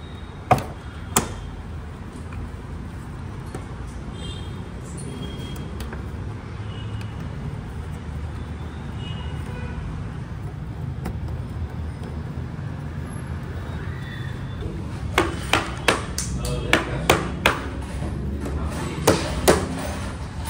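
Sharp plastic clicks and knocks from hands working the motorcycle's airbox cover and clips: two near the start, then a quick run of about ten in the last five seconds. A steady low hum underneath.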